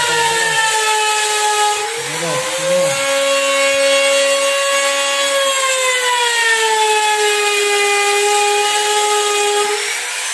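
Handheld electric trim router cutting into a wooden door jamb, its motor giving a high steady whine. The pitch sags as the bit bites into the wood, briefly about two seconds in and for longer in the second half, and climbs back near the end.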